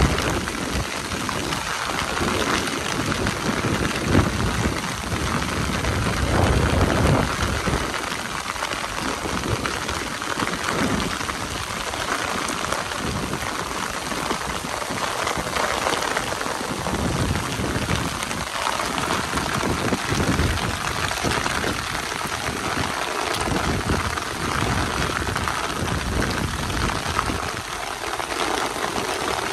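Heavy rain pouring down steadily, a dense even hiss, with irregular low rumbles underneath.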